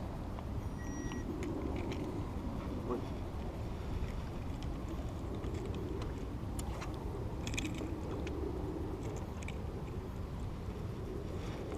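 Wind buffeting the microphone: a steady low rumble, with a scattering of small, faint clicks from handling.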